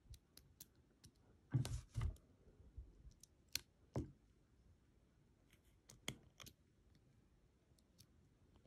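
Faint, scattered metallic clicks and taps as a pick and screwdriver work the cam and firing pin of a snapped Ultion lock cylinder, with the loudest clicks around two and four seconds in.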